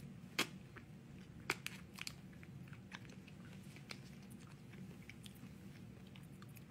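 A person biting into and chewing a small snack close to the microphone: two sharp crunchy bites in the first second and a half, then fainter chewing clicks.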